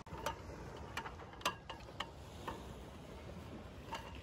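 A series of about seven light, sharp clicks and taps at uneven intervals, the strongest about a second and a half in, over a steady low background hiss.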